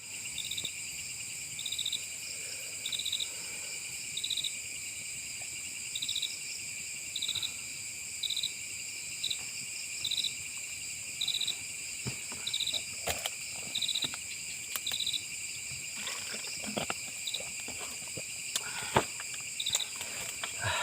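Night insect chorus: a steady high-pitched trill with a short pulsed chirp repeating about once a second. In the second half come scattered knocks and rustles, the sharpest near the end.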